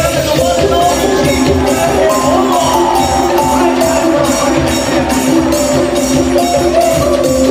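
Music: a melody over a steady percussion beat.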